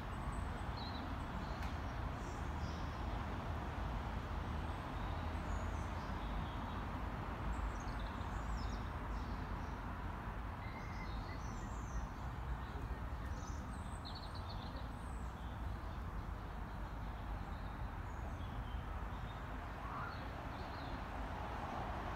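Outdoor ambience: a steady low rumble with scattered short, high chirps of small birds throughout.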